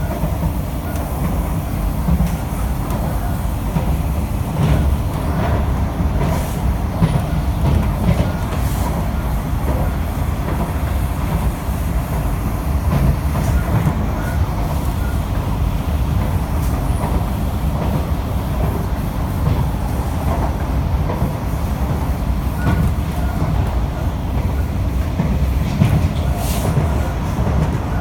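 Cabin noise inside an SMRT C151B metro train car running along the track: a steady low rumble from the wheels and rails, with a few faint clicks.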